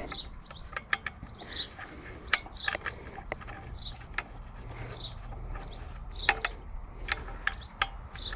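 Scattered clicks, taps and light knocks of a compression tester kit being handled: a rigid adapter packed back into its plastic case and the flexible hose adapter taken out to be fitted to the chainsaw's plug hole.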